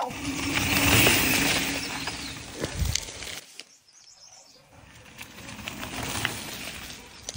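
Fluttering, rushing noise in two swells with a few sharp clicks, like wind buffeting the microphone. It is loudest about a second in, drops away around the middle, and rises again.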